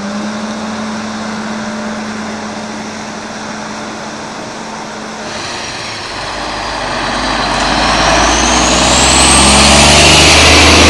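A steady hum, then a tractor-trailer truck drives past on a wet road. Its engine rumble and tyre hiss build to a loudest point near the end, with a thin whine rising in pitch.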